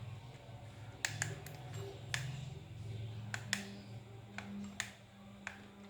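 Light, irregularly spaced clicks and taps from a plastic analogue alarm clock being handled, over a low steady hum.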